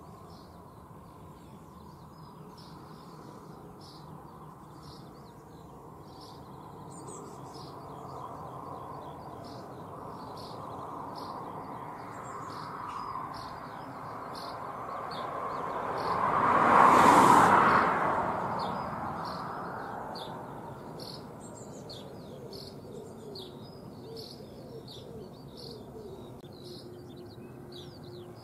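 Four-engined Boeing 747-400F jet passing over on its landing approach: a broad jet rumble that builds slowly, is loudest a little past the middle with sliding tones, then fades. Small birds chirp throughout.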